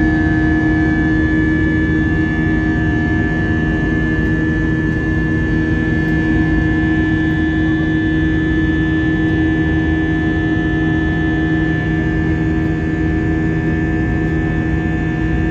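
Cabin noise of an Airbus A320-232 with IAE V2500 turbofan engines in the climb after takeoff: a steady rush of air with a constant low hum and a high engine whine.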